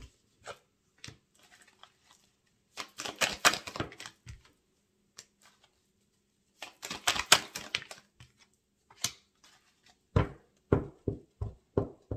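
A deck of divination cards being shuffled by hand, in two bursts of rapid clicking. Near the end comes a run of about ten soft, separate thumps.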